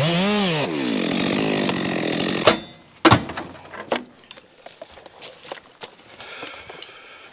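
A Stihl chainsaw revs up and back down once, then runs at steady throttle cutting through a log, and cuts off suddenly about two and a half seconds in. A sharp knock follows, then faint scattered footsteps and rustling on a leaf-covered forest floor.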